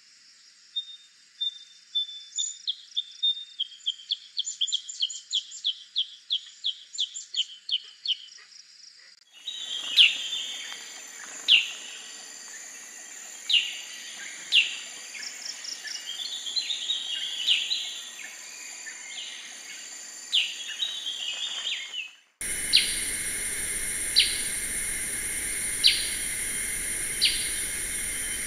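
Black-headed bulbul calling: first a quick run of chirps that speeds up, then sharp single call notes at irregular intervals, then sharp calls about every second and a half over a steady high insect drone. The recording cuts abruptly to a different background twice.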